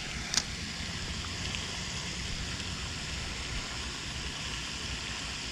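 Steady outdoor background noise, a low rumble under an even hiss like running water, with one short sharp click about half a second in.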